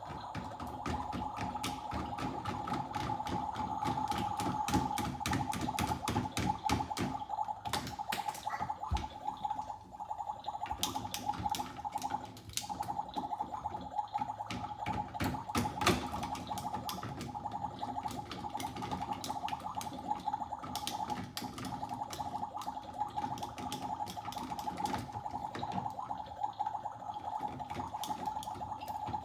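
Plastic toy kitchen utensils, pots and dishes clicking and clattering as a small child handles them, irregular light knocks throughout, over a steady hum.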